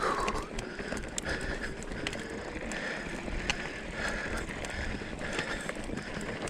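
Hardtail mountain bike riding over a rocky trail: tyres rolling and crunching on loose rock, with many scattered clicks and knocks, and a higher whine that comes and goes. Low wind rumble on the microphone.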